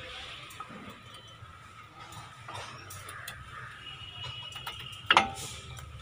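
Light metallic clicks and taps of a new brake pad being fitted by hand into the front disc brake caliper of a Maruti Suzuki Swift Dzire. One sharper, louder metal clack with a short ring comes about five seconds in.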